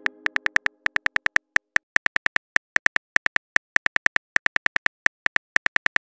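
Smartphone keyboard typing sound effect: a quick, uneven run of short, identical key clicks, several a second, with brief pauses, as a message is typed out letter by letter.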